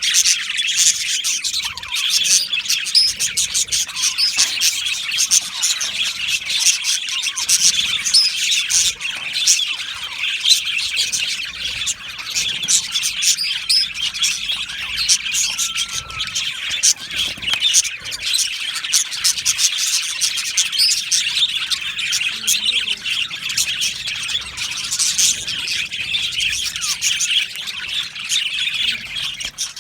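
A colony of budgerigars chattering, with many birds calling at once in a dense, unbroken stream of high chirps and squawks.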